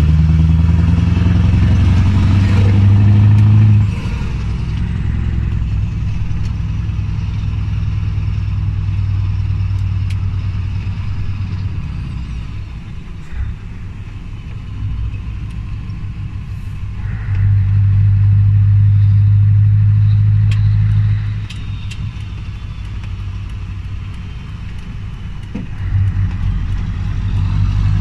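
Scania V8 diesel engine heard from inside the truck cab, a deep steady drone while driving. It pulls loudly, drops back a few seconds in, swells again for a few seconds past the middle, eases off, and rises once more near the end.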